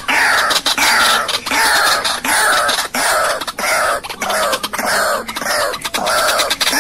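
White-breasted waterhen calling, played as a trapping lure: a harsh croak that falls in pitch, repeated evenly about one and a half to two times a second, with short sharp clicks among the notes.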